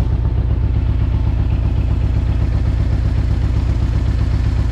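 Harley-Davidson Road Glide's V-twin engine idling steadily with an even low pulse, the bike stationary and running hot with its oil at about 378°F.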